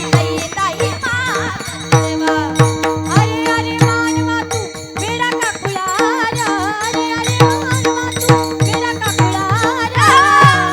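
Devotional kirtan music: a hand drum keeping a steady beat under a held drone, with a wavering melody line above.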